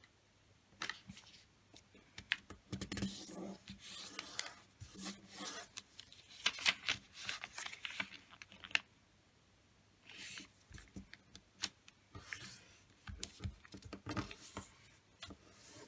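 A sheet of 15 cm origami paper being folded corner to corner into a triangle and creased: irregular crisp rustling and crinkling with light scrapes and clicks as fingers press and run along the fold, broken by a couple of short pauses.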